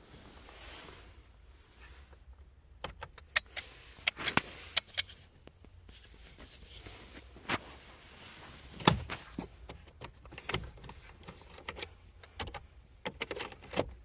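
Irregular sharp clicks and knocks of hard objects being handled, in clusters, the loudest about nine seconds in.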